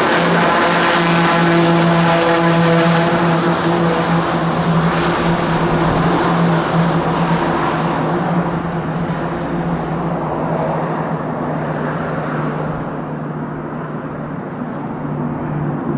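Twin-engine turboprop aircraft running, a steady propeller drone over engine hiss. The hiss fades through the second half as the aircraft draws away, and the drone drops slightly in pitch near the end.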